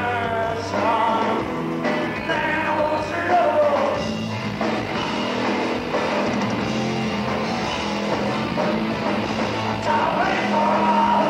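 Live rock band playing, with electric guitar and a singing voice over it.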